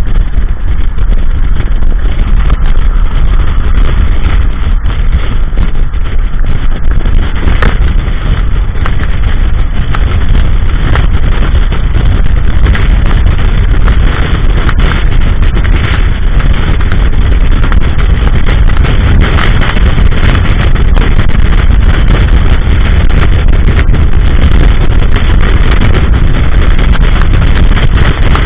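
Strong blizzard wind buffeting the microphone: a loud, steady rumble with no let-up.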